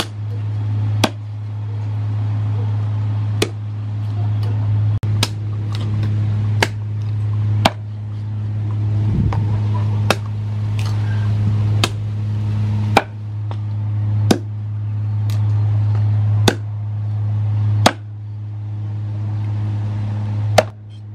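Meat cleaver chopping pork leg on a round wooden chopping board: a sharp chop about every one to two seconds, over a steady low hum.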